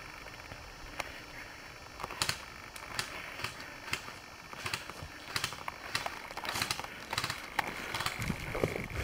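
Airsoft guns firing single shots: sharp clicks and snaps at irregular intervals, coming more often in the second half.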